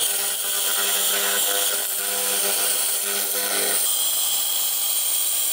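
JASIC WF-22L handheld laser in cleaning mode ablating paint off metal: a steady high-pitched hiss, with a lower hum under it that stops about four seconds in.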